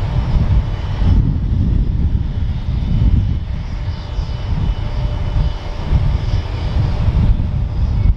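Jet aircraft noise at an airport: a heavy low rumble that rises and falls unevenly, with faint steady whines above it.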